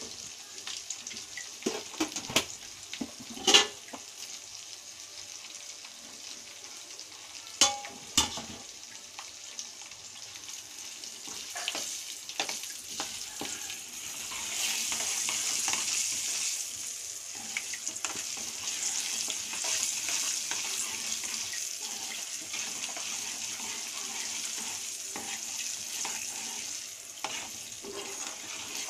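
Tempering spices (dried red chillies and cumin) sizzling in hot oil in a kadai, stirred with a steel ladle. A few sharp knocks come in the first eight seconds, and the sizzle grows louder about halfway through.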